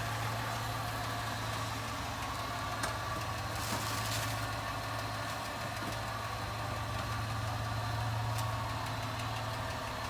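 The 2011 Ford Escape's 3.0 L V6 idling steadily, with a small ticking noise from the engine that is put down to a noisy MAP sensor, or one that almost sounds like a tappet.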